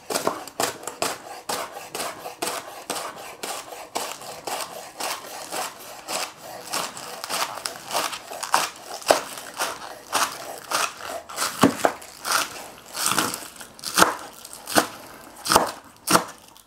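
Chef's knife chopping spring onions on a wooden chopping board: a steady run of crisp knife strikes through the stalks onto the board, several a second, with some louder strikes in the second half.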